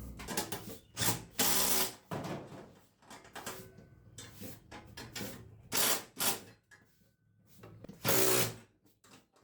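Electric drill run in several short bursts, driving nuts and bolts tight on the garage door opener's mounting.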